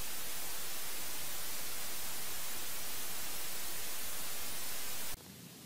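Steady static hiss, even across all pitches and unchanging in level, cutting off suddenly about five seconds in.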